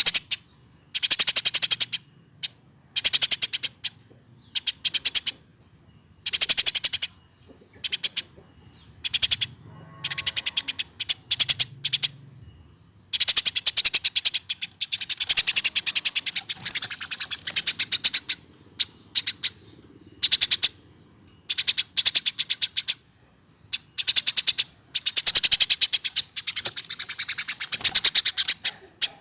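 Eurasian tree sparrow chirping in long, fast runs of short, sharp notes, many a second, broken by brief pauses. This is the full rolling song of a bird over a year old.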